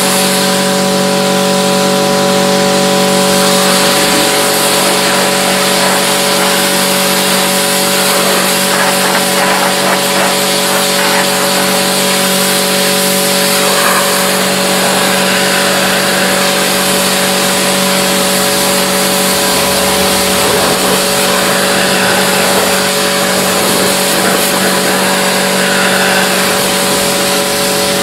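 A motor in car-cleaning equipment running steadily for the whole stretch: a constant hum of fixed tones under a loud, even rushing hiss.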